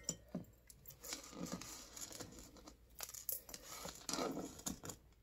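Faint rustling and crackling of dried herbs and spices as star anise is pushed by hand into a glass mason jar packed with herbs, with scattered light clicks and a denser rustle a little after four seconds in.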